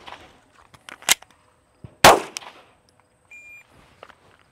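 Handgun reload in a timed drill: sharp metallic clicks about a second in as a fresh magazine is seated and the slide goes forward, then a single loud pistol shot about two seconds in that rings off. A short electronic beep follows near the end.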